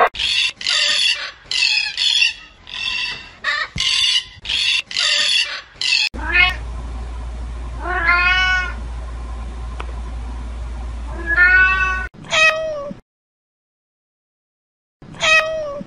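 Cats meowing: a fast run of short mews for the first six seconds, then a few longer meows that rise and fall over a low steady hum, and single meows near the end after a short silence.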